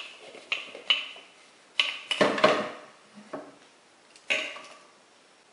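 Hard plastic clatter from a Central Pneumatic brake fluid bleeder being handled: a few sharp knocks and scrapes as the plastic fluid container is separated from the trigger head and set on the bench. The loudest knocks come about two seconds in and again just past four seconds.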